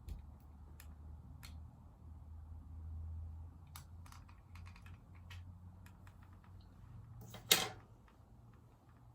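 Scattered light clicks and rustles of a hair crimper being clamped and released along sections of hair, with one louder short rustle about seven and a half seconds in, over a low steady hum.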